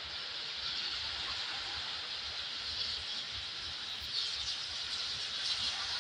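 A steam locomotive approaching in the distance: a steady rushing hiss over an uneven low rumble, slowly growing louder.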